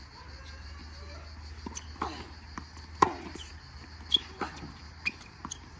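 Tennis ball struck by rackets and bouncing on a hard court during a rally: a string of sharp pops, the loudest about three seconds in.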